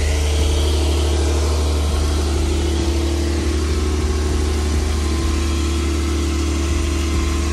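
A car engine idling: a steady low rumble with a faint hum that rises slightly in pitch partway through.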